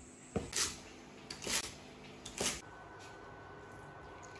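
Cleaver chopping dried tofu skin on a wooden cutting board: three sharp chops about a second apart, each with a lighter tap just before it. After them comes a steady low background hum with a faint steady tone.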